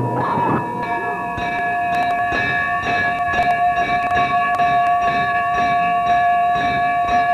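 Temple hand bell rung steadily from about a second in, its clapper striking about three times a second so that the ringing holds on without a break.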